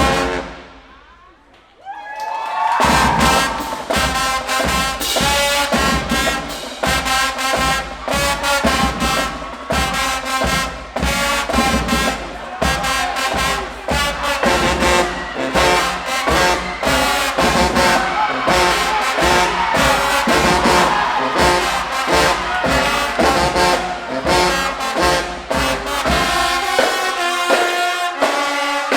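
High school marching band playing, brass and percussion together. The band cuts off just at the start and the sound rings away. About two seconds in, the full band comes back in loud and keeps playing.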